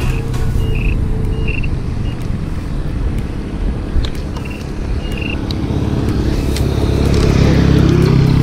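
Dokma-DS dual-hub-motor electric kick scooter riding over a concrete road, with wind and road noise as it slows to a crawl and then picks up speed. Its motor whine rises near the end as it accelerates. A motor tricycle's engine rumble grows louder alongside at the same time.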